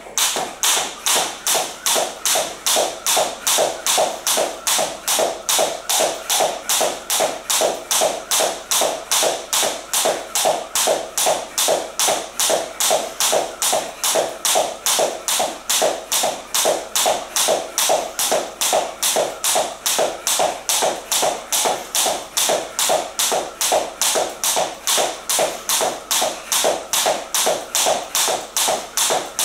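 Jump rope slapping a hard floor on every turn together with the light landings of the feet, in an even rhythm of a little over two strokes a second.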